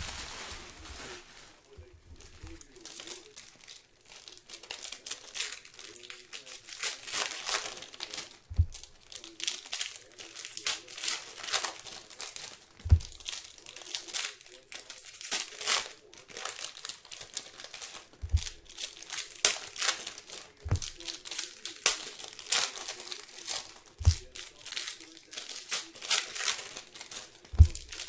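Trading card pack wrappers being torn open and crinkled, a busy irregular crackling throughout, with a few dull low thumps here and there.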